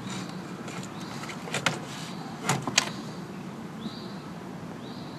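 Handling noise from a car door's plastic inner trim: a few short, sharp clicks and knocks as the upper trim piece with the door handle is worked loose. Two brief high chirps come near the end.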